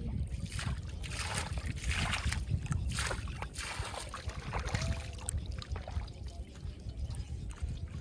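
Pond water splashing and sloshing as a bowl is dipped in and its water flung out over the surface, several splashes over the first half, above a steady low rumble.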